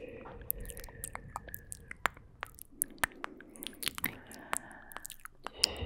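ASMR mouth sounds close to a microphone: quick, irregular wet clicks and pops of lips and tongue, several a second.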